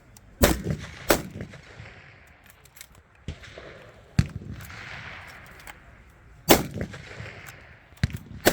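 Six rifle shots at uneven intervals, two close together near the start and two close together near the end, each followed by a short echo trailing off.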